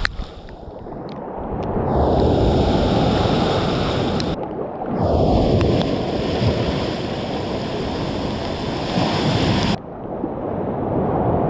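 Powerful sea waves breaking and churning in the shallows, heard from a camera held at the waterline. Three times a wave washes over the camera and the sound goes suddenly muffled, then slowly clears.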